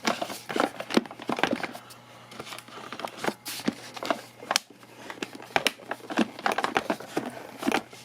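Irregular plastic clicks, knocks and rattles as the cyclone assembly of a Shark bagless stick vacuum is twisted and pulled to take it apart. The part is stuck and won't come loose.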